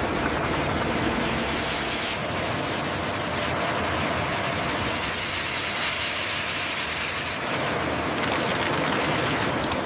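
Steady heavy-machinery noise with a strong hiss, its character shifting a few times, with a couple of brief clicks near the end.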